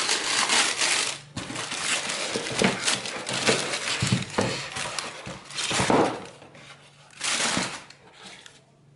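Tissue wrapping paper rustling and crinkling in a cardboard shoebox as a canvas sneaker is pulled out of it and handled, in several loud spells that die away near the end.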